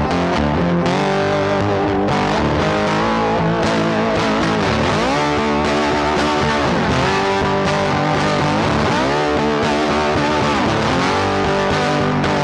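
Background rock music led by distorted electric guitar, with a swooping pitch bend about seven seconds in.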